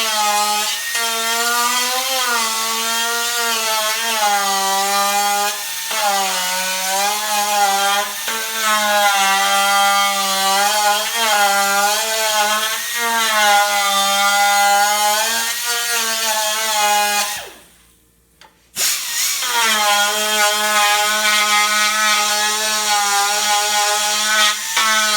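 Hand-held power tool cleaning up a metal motorcycle part. The motor's whine dips and recovers as it is pressed onto the work and eased off. It stops for about a second some 17 seconds in, then starts again.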